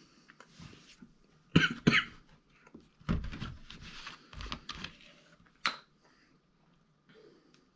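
A man coughs hard twice in quick succession from the burn of a just-eaten Carolina Reaper chilli. Then a plastic milk bottle is handled and its screw cap twisted off, with a short sharp sound shortly before the end.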